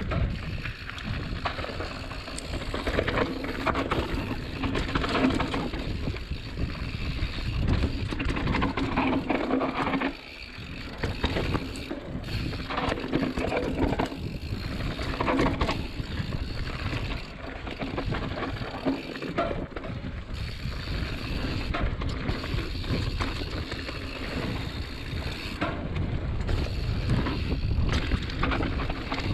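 Mountain bike riding over a dirt trail: the tyres rumble and the bike rattles over the rough ground, with wind noise on the microphone. The noise dips briefly about ten seconds in.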